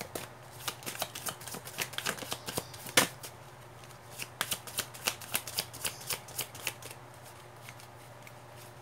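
Tarot deck being shuffled by hand: quick papery snaps of cards slapping together, a few a second, with one louder snap about three seconds in and brief lulls just after it and near the end.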